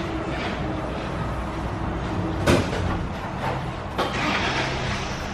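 Tyre shop workshop noise: a steady low mechanical hum with two sharp knocks about a second and a half apart, the first the louder.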